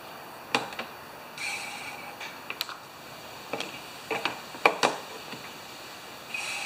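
Scattered light clicks and knocks of hard plastic being handled at a lawn mower's fuel tank, with a pair of sharper clicks about two thirds of the way in and two brief soft rustles.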